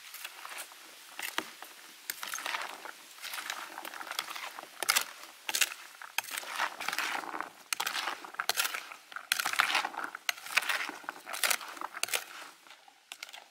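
Metal spoon tossing a chopped vegetable salad of cucumber, tomato, onion and long beans in a plastic bowl: irregular scraping and clicking strokes of the spoon against the bowl and vegetables, a couple a second, dying away near the end.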